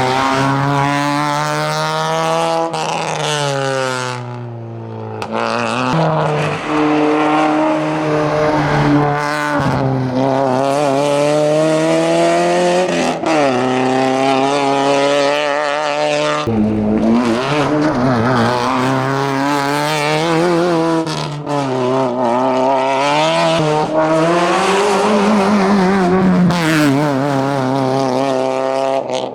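Opel Corsa A hillclimb car's engine under hard racing use, revving up and dropping back again and again.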